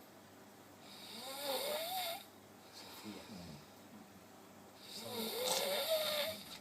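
A person snoring: two long snores about four seconds apart, each with a wavering whistling tone over a raspy hiss.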